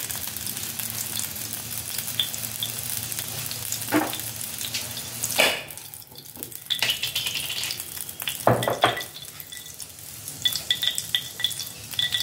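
Hot mustard oil sizzling in a small tempering pan on a gas burner, heating for a tadka. A few sharp knocks of metal on the pan or stove come through, the loudest about five and a half seconds in, with another cluster near nine seconds.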